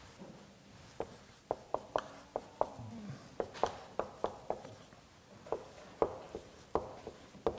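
Marker writing on a whiteboard: a string of short, sharp squeaks and taps, a few a second, one for each pen stroke, with a brief pause near the middle.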